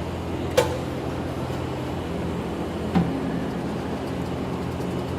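Truck tire changing machine running with a steady hum, with two sharp metal clanks, one about half a second in and one about three seconds in, as the tire is lowered on the machine's lift platform.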